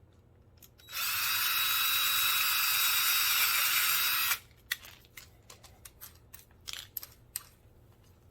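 Power drill running steadily for about three seconds, boring a pilot hole in PVC pipe for a screw eye, then stopping suddenly; a few light clicks and taps follow.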